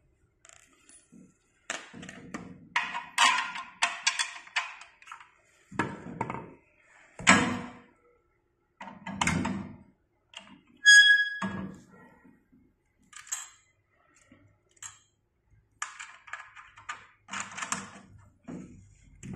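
Steel frame parts and bolts of an elliptical trainer knocking and clinking as the front foot tube is fitted to the main frame. There is clattering handling of metal hardware and several separate knocks, and a metal part rings with a short clear tone about halfway through.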